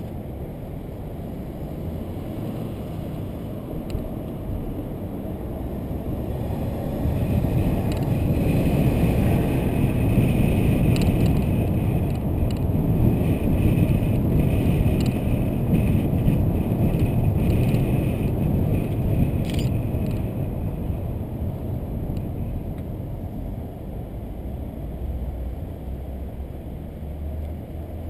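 A car driving at low speed, heard from inside the cabin: engine and tyre noise swell as it speeds up about a quarter of the way in, hold for several seconds, then ease off as it slows again, with a few light ticks along the way.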